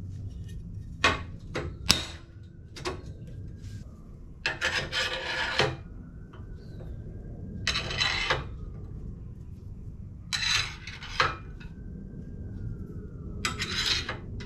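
Screwdriver steel shafts slid one at a time into the holes of a steel screwdriver rack, each making a scraping metal rattle, four times in all. Before them come a few sharp metal clicks as the steel bar is handled.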